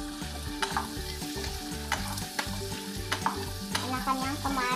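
Squid pieces frying in hot oil in a nonstick saucepan, sizzling steadily, while a wooden spatula stirs them and knocks against the pan a few times.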